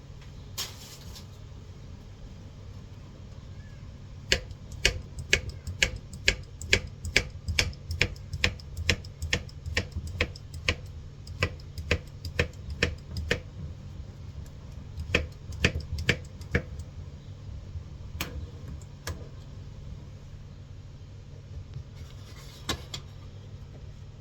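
Knife chopping fruit on a cutting board: a run of sharp, regular knocks, about two a second, starting about four seconds in, then a few more and some single strokes. A steady low hum runs beneath.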